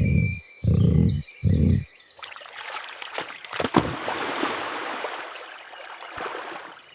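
Three short low thumps, then a rushing, water-like noise with scattered crackles that fades away.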